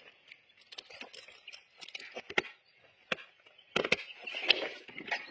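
Metal tyre chain on a motorcycle wheel clinking and rattling in short, irregular knocks as it is handled and fitted around the tyre.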